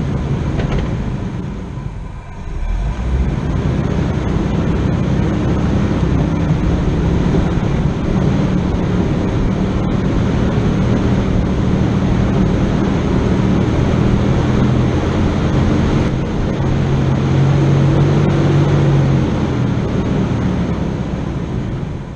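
A four-wheel-drive vehicle's engine running steadily on a trail. It eases off briefly about two seconds in, then works harder for a few seconds near the end.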